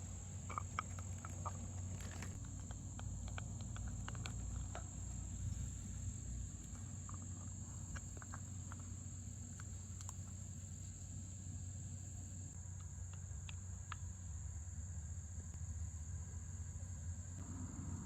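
Dog gnawing a hard antler chew: faint scattered clicks of teeth on antler, mostly in the first few seconds and again around the middle, over a steady high-pitched whine and a low hum.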